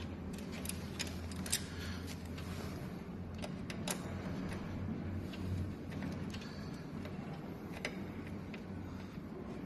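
Scattered light clicks and taps of hands working on a treadmill motor's wiring while attaching its ground wire, over a steady low hum.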